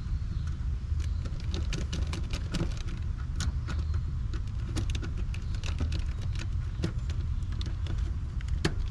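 Small clicks and taps of fingers and a screwdriver working wire terminals onto an AC condenser's contactor, over a steady low hum.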